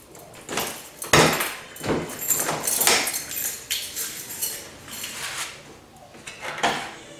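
Ford Focus bonnet being released at its front catch and lifted open: a series of metallic clunks and rattles, the loudest sharp clunk about a second in, with another knock near the end.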